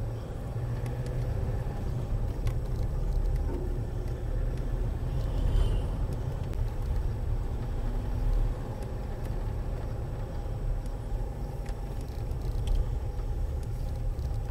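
Land Rover Freelander 2 driving along a lane: a steady low engine and road rumble, with a few light knocks here and there.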